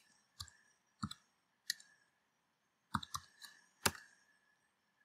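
Computer keyboard keys being pressed: about eight separate, irregularly spaced clicks as code is typed, a couple of them in quick succession.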